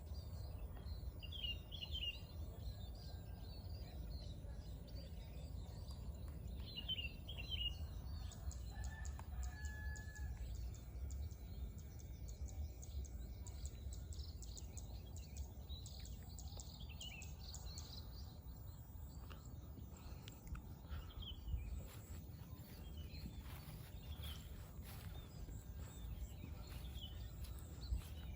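Rural morning ambience: small birds chirping in short repeated phrases and a rooster crowing, over a steady low rumble.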